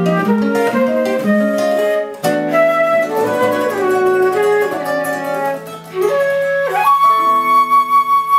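Concert flute and nylon-string classical guitar playing a duet: a running flute melody over plucked guitar chords, closing on a long held flute note over ringing guitar chords that stops near the end.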